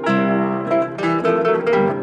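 Background music: a plucked string instrument playing a melody of quick notes, each starting sharply and dying away.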